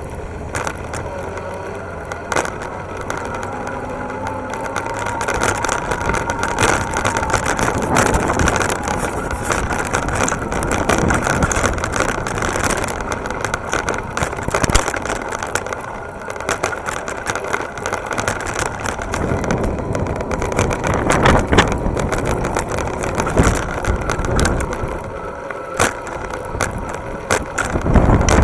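Riding noise from a camera mounted on an EasyMotion Nitro Cross electric bike rolling over rough city pavement: a steady rumble of tyres and rushing air with frequent sharp rattles and knocks from the bumps coming through the mount.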